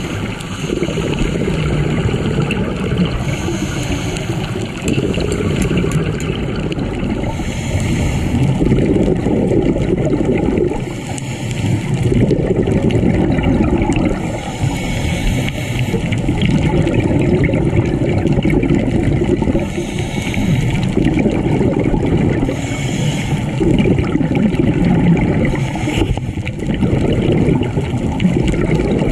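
Scuba diver breathing through a regulator underwater: a hiss on each breath and a gurgle of exhaust bubbles, coming round every three to four seconds over a steady rumble.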